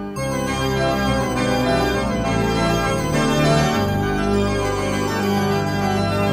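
Synthesized organ music: full held chords on a keyboard imitating a pipe organ, moving from chord to chord every second or so.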